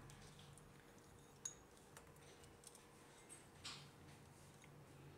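Near silence: room tone with a few faint light clicks and taps, the clearest about a second and a half in, and a soft brushing sound a little over two thirds of the way through.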